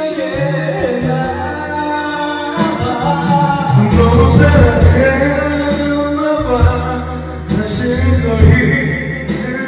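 A singer performing a song over a karaoke backing track. The accompaniment fills out with a heavier bass and beat about four seconds in.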